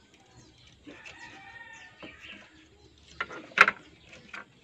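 Hard plastic toy-gun stock halves knocking and clicking as they are handled and fitted together, with a few sharp knocks a little past three seconds in. A bird calls faintly about a second in.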